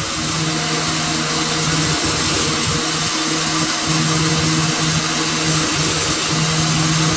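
Electric-motor-driven workshop machine running steadily, a constant hum under a loud high hiss, the hum fading in and out every second or so.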